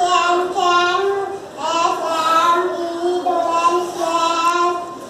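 A young girl's voice reciting in a sing-song chant, drawing out the words on held notes with short breaks between phrases.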